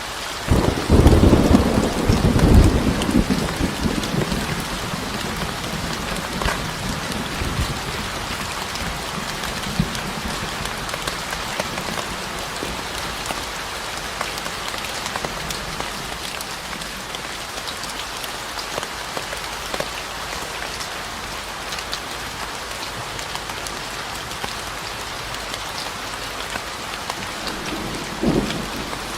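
Steady rain falling, an even hiss. A low rumble of thunder rolls in about a second in and fades over a few seconds, and another rumble begins near the end.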